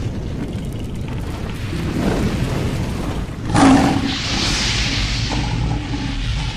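A steady low rumble that starts abruptly, with a sharp boom-like hit about three and a half seconds in, followed by a hiss for a couple of seconds.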